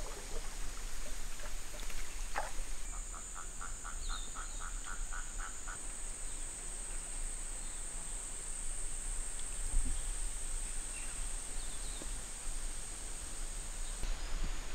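Tropical rainforest wildlife along a river: a steady high insect drone throughout, with a rapid run of about a dozen evenly spaced calls a few seconds in and a few faint bird chirps.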